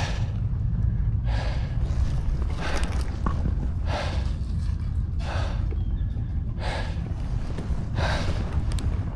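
A person breathing hard and rhythmically, a sharp breath about every second and a half, over a steady low rumble.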